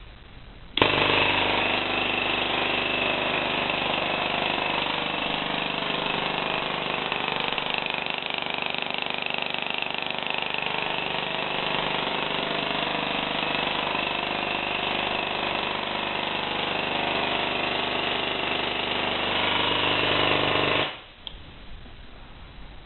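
Home-built 300 kV Cockcroft-Walton voltage multiplier, fed by an oil-bathed ignition coil, switched on about a second in: a loud, steady rasping buzz of high-voltage electrical discharge with a hum underneath. It cuts off suddenly near the end when the power is switched off.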